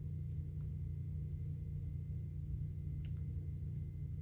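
Steady low hum with a faint high whine, and two faint clicks, one about half a second in and one about three seconds in.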